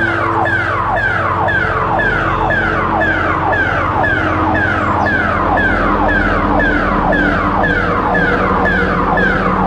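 Emergency alert alarm tone: an electronic sweep falling in pitch, repeating evenly about twice a second over a low steady drone.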